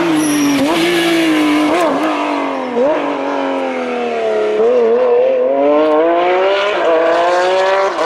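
Rally car engine running at high revs. Its note falls over the first few seconds, broken by several short blips, then climbs steadily as the car accelerates.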